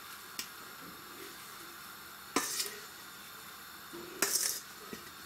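Metal utensil scraping chopped sorrel out of a metal bowl into a pot, with a few short clinks and scrapes of metal on metal; the loudest come about two and a half seconds in and again just past four seconds.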